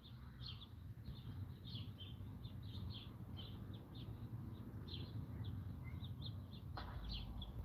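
Small birds chirping outdoors: many short, high chirps scattered throughout, over a faint low background rumble. A single soft click comes near the end.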